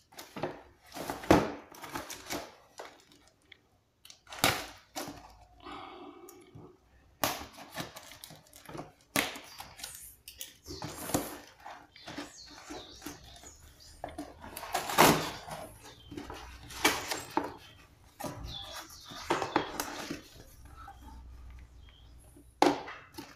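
Cardboard shipping box being opened by hand: packing tape tearing and cardboard flaps scraping and rustling in irregular crackles and scrapes, loudest about a second and a half in and again around the middle.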